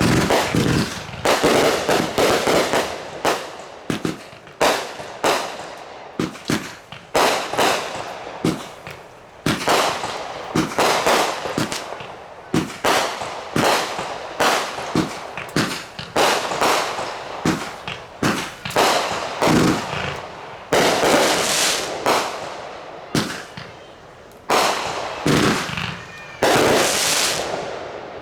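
Consumer fireworks going off in a dense barrage of bangs, several a second, each with a short fading echo, ending shortly before the close.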